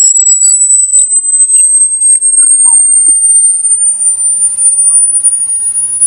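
Electronic rat-repellent tone: a single loud, high-pitched whistle that rises slowly in pitch, with faint short chirps underneath. It is meant to drive rats away.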